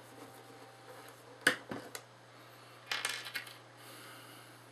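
A sharp click about a second and a half in, then a brief patter of light metallic clinks just before three seconds: small screws and metal parts from a flood light's housing being handled and set down on a tabletop. A faint steady low hum lies underneath.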